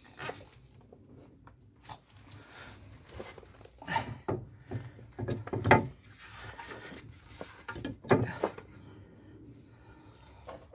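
A new brake disc being slid over the wheel hub and seated by hand: a few sharp metal knocks and clunks with handling scrapes between them, the loudest about halfway through.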